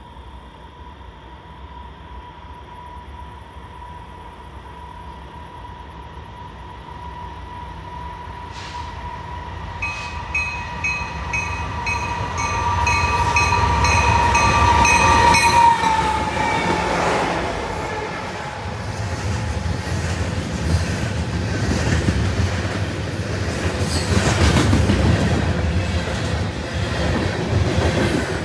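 A freight train approaching and passing, led by a GE Dash 9-44CWL locomotive. Its steady tone grows louder and drops in pitch as the engine goes by, about halfway through, with a bell ringing in evenly spaced strokes just before. After that come the rumble and rhythmic clickety-clack of the freight cars rolling past.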